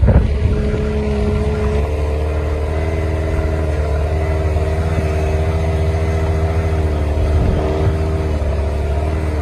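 Rock-crawler buggy's engine running under load at steady revs as the buggy climbs nose-up up a near-vertical rock ledge, its pitch stepping up slightly about two seconds in.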